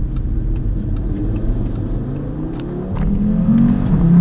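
Audi TT RS's turbocharged five-cylinder engine pulling under acceleration, heard from inside the cabin. Its pitch rises steadily, and it gets louder about three seconds in as the throttle opens further.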